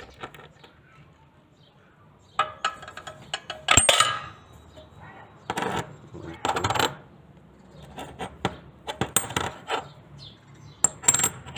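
Small steel parts of a circular saw's blade mount, the arbor bolt and flange washer, clinking and rattling against each other and against metal as they are handled. The sound comes as several separate bursts of sharp clinks with a short metallic ring.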